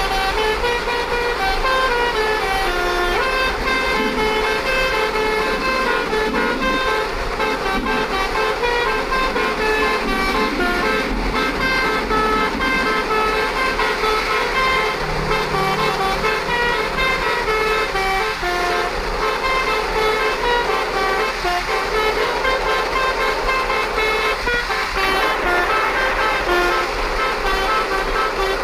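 Basuri telolet horn, a multi-trumpet air horn, playing a continuous melody of short stepped notes, over a steady low hum.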